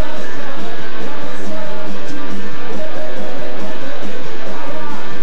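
Punk rock band playing live, loud: electric guitars strumming over drums.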